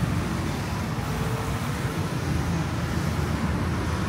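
Steady road traffic noise from cars and other vehicles running along a busy city street, a continuous low rumble with no single sharp event.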